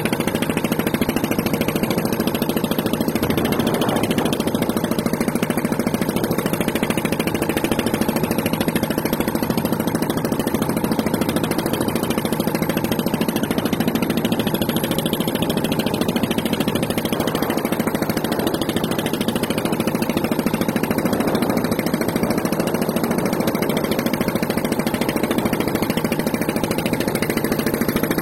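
A steady mechanical drone like an engine running at a constant speed, unchanging throughout.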